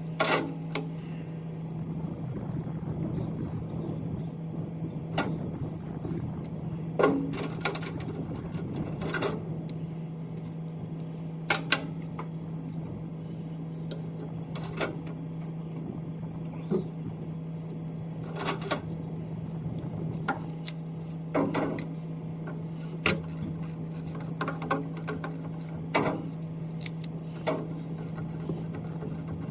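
Scattered metallic clicks and knocks of hand tools working on a haul truck's battery clamp and bracket bolts, over a steady low machine hum.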